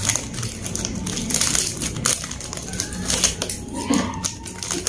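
Plastic snack wrappers crinkling and crackling in irregular bursts as hands handle the pink snack packets.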